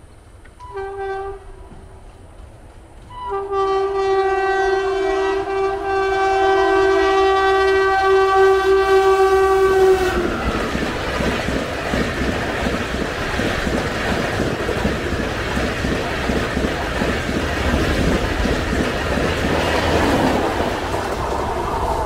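Indian express train's locomotive horn: a short blast, then a long, steady, honking blast lasting about seven seconds. The horn cuts off and the train's coaches then run past with a steady rumble and wheel clatter on the rails.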